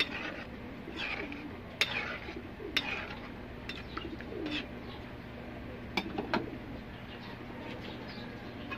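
Metal ladle clinking and scraping against a steel wok a few times while stirring thick mung bean stew in coconut milk, with a low steady hum underneath.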